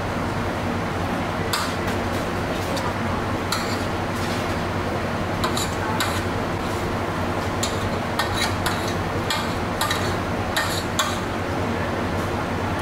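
Cutlery clinking and scraping against a plate while eating: irregular short clicks, more frequent in the second half, over a steady low background hum.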